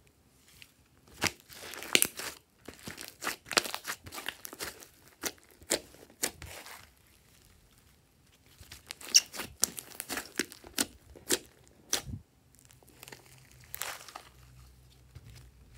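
Slime with small beads mixed in being stretched, peeled off a table and pressed by hand, giving sticky crackles and sharp pops in clusters, with two short quiet pauses.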